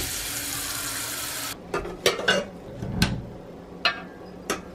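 Kitchen tap water running into a rice cooker's inner pot, stopping abruptly about a second and a half in. It is followed by a handful of knocks and clinks of pot and glass as a glass bowl of minced pork is set into an Aroma rice cooker for steaming. The deepest knock comes about three seconds in.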